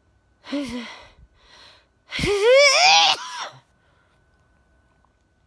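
A woman sneezing: a short breathy 'ah' and a sharp intake of breath, then about two seconds in a loud, voiced sneeze whose pitch wavers up and down.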